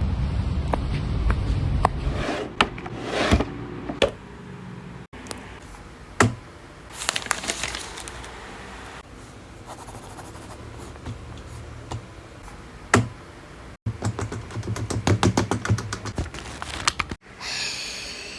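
Hand-made foley sound effects: a series of sharp clicks and knocks with stretches of scraping and rustling noise, broken by sudden cuts. Later on comes a quick run of rapid clicks, like typing.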